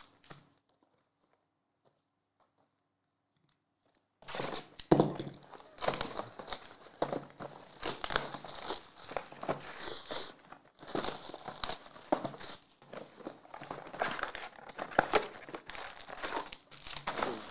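About four seconds of near silence, then Panini Select basketball hobby boxes being torn open and their foil packs handled: cardboard tearing and wrappers crinkling in quick, irregular bursts.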